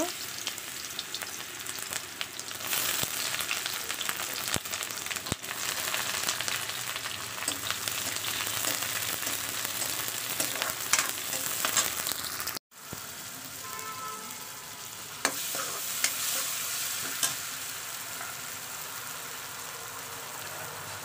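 Sliced onions sizzling and crackling in hot oil in a steel kadai, with the scrape and clink of a metal spoon stirring them now and then. The sound drops out for an instant about two-thirds of the way through.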